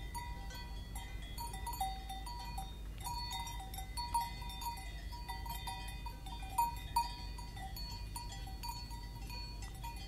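Several cowbells of different pitches clanking irregularly and continuously, with a few louder clangs about four and seven seconds in.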